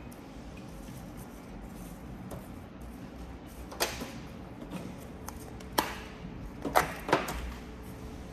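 A few sharp plastic clicks and taps from handling a small plastic cup of coloured sand and a plastic spoon on a tabletop. Single taps come about four and six seconds in, then a quick cluster of four, the loudest, near the end, over a steady low hum.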